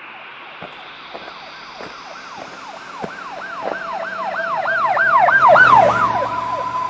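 An emergency-vehicle siren yelping in quick rising-and-falling sweeps, about three a second, growing louder to a peak near the end and then easing off into a steady held tone.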